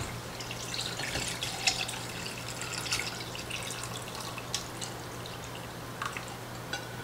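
Liquid pouring from a stainless steel pot through a mesh strainer into a glass jar, a faint steady trickle with a few small drips and light ticks, as steeped citrus peels are strained out. A steady low hum runs underneath.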